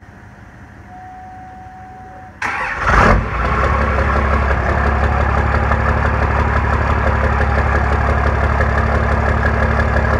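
A 12-valve Cummins inline-six diesel with a P7100 injection pump cranks briefly and fires about two and a half seconds in, then settles into a steady idle heard at the exhaust tip. A faint steady whine comes just before it cranks.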